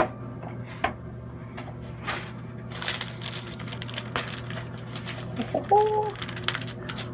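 Scattered clicks and short rustles of hands handling parchment paper and a hair straightener while pressing kief into rosin, over a steady low hum. A brief pitched sound comes about six seconds in.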